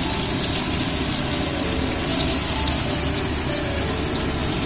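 Paneer cubes shallow-frying in hot oil in a kadai: a steady sizzle with fine crackling.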